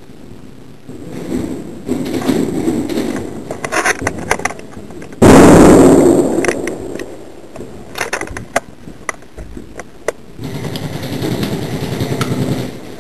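Airsoft guns firing scattered sharp shots in the dark. About five seconds in there is one much louder sudden bang that fades over about a second.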